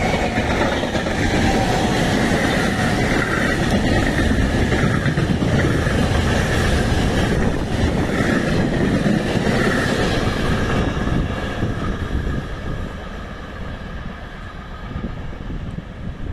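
Freight train of container wagons passing close by: a loud, steady rush and rattle of wheels on the rails with a faint ringing tone over it. The sound fades over the last few seconds as the end of the train draws away.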